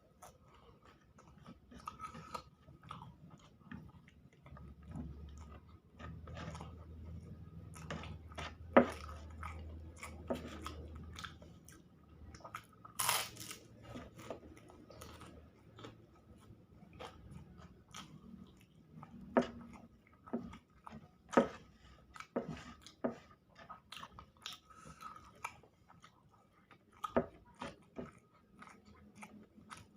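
A person chewing and biting food close to the microphone, with scattered short sharp clicks and crunches; the loudest snaps come about nine and thirteen seconds in.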